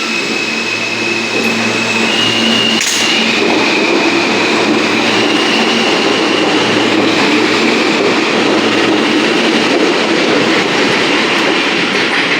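New York City Subway J train running underground, a steady rumble of wheels on rail with a high whine that steps up and down in pitch. A single sharp click about three seconds in.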